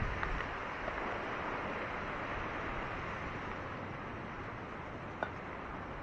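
Small waves washing onto a rocky shore: a steady hiss of surf that eases slightly, with one short sharp click about five seconds in.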